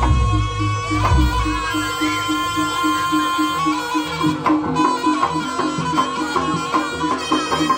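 Live Javanese jaranan gamelan music: a slompret (reed shawm) holds a long nasal melody over a steady pulse of metal pot-gong strokes at about four a second, with deep drum and gong strokes in the first second.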